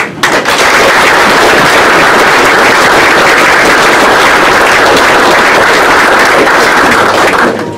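Audience applauding, loud and steady, with the clapping dying away near the end.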